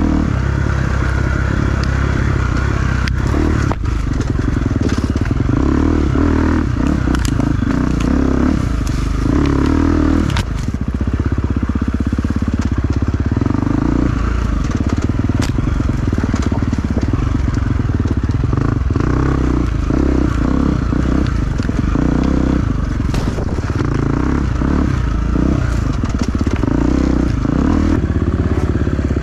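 Enduro dirt bike engine running continuously while riding, with frequent sharp clicks and knocks over the top.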